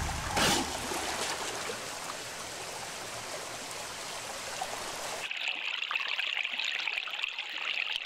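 Irrigation water rushing out under a sluice gate into a concrete channel, a steady stream sound with a short burst just after the start. About five seconds in it changes abruptly to a thinner, higher trickling hiss of running water.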